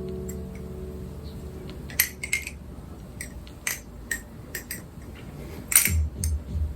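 A balisong (butterfly knife) being flipped: a scattered series of sharp metallic clicks and clacks as its handles and blade swing and knock together. Low background music fades at the start, and a beat comes back near the end.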